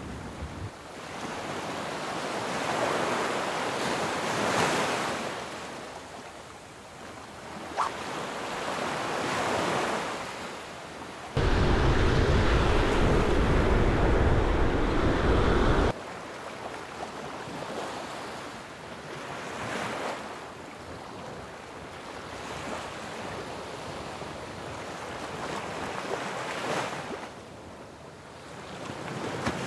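Surf breaking on a beach, rising and falling in slow swells every few seconds, with wind on the microphone. For about four seconds midway a heavy wind rumble on the microphone is the loudest sound, starting and stopping abruptly.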